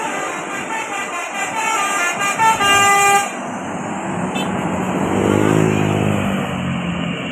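Bus telolet basuri horn playing a quick tune of stepped notes, cutting off after about three seconds. Then traffic noise, with a vehicle engine rising and falling in pitch near the end.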